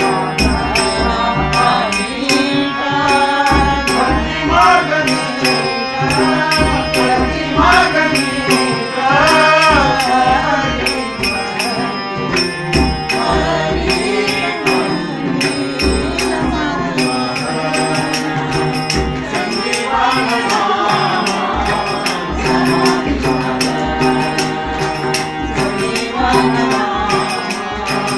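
A group singing a Marathi bhajan in unison, accompanied by tabla and a harmonium's held notes, with hand claps keeping a steady beat.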